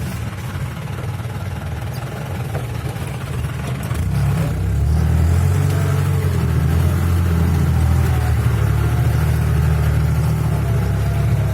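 A vehicle engine running with a steady low rumble, getting louder about four seconds in as it pulls harder.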